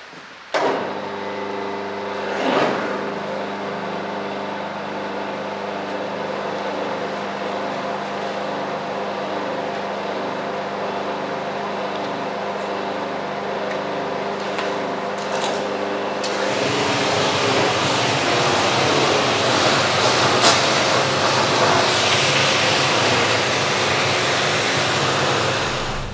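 Pressure washer running steadily: its motor-driven pump starts suddenly about half a second in and hums under the hiss of the high-pressure spray. The spray hiss grows louder and rougher about two-thirds of the way through.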